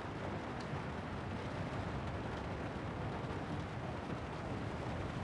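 Steady low rumbling noise that stays even throughout, with no distinct events.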